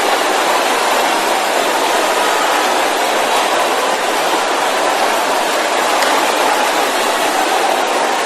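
A large congregation praying aloud all at once, many voices merging into a steady, dense wash of sound with no single voice standing out.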